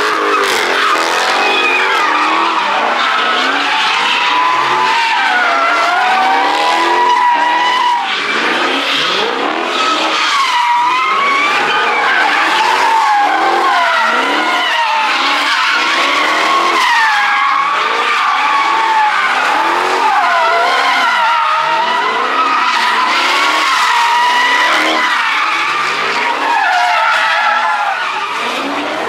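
A car drifting: tyres squealing without a break, the squeal wavering up and down in pitch, with the engine revving over and over underneath.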